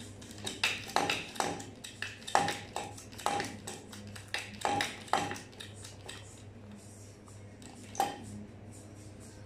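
Steel tools and parts clinking and knocking against each other: about a dozen sharp metallic strikes with a short ring in the first five seconds, one more about eight seconds in, over a steady low hum.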